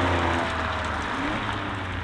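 Alfa Romeo Giulia Quadrifoglio's twin-turbo V6 running as the car moves away, its sound fading gradually.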